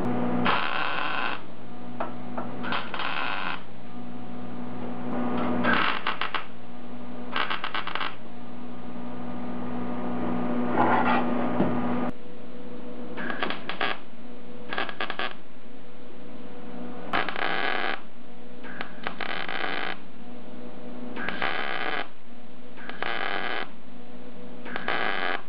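Electric welder laying about a dozen short, crackling tack welds, each under a second, to fix a thin plate to the car body, over a steady electrical hum.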